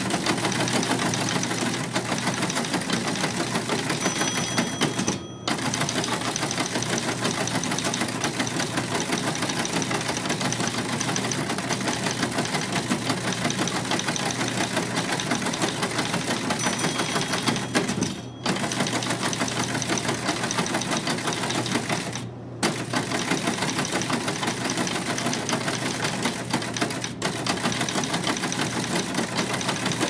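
Typewriter being typed on fast and without letup, the keys striking in a dense clatter. It breaks off in short pauses about five, eighteen and twenty-two seconds in.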